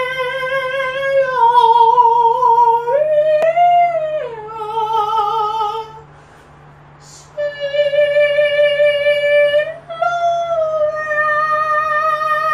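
A high solo voice singing long held notes with a wide vibrato and no clear words; it breaks off about six seconds in and picks up again a second or so later.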